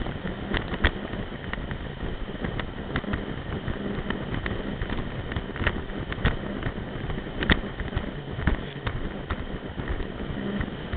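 Sea-Doo RXP-X 255 RS personal watercraft running at speed over choppy water, heard from on board. A steady rush of engine, water and wind is broken by irregular sharp knocks as the hull slaps the waves.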